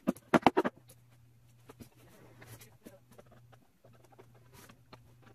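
A rapid cluster of about six sharp knocks and clicks in the first second, then faint scrapes and rustles: a wooden speaker-cabinet panel being pressed into place by hand, its snap-in fasteners clicking home.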